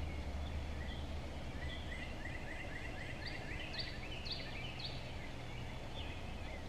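Birds calling in the pre-dawn backyard chorus. There is a rapid series of short repeated notes, then higher sharp chirps about halfway through, over a steady low hum.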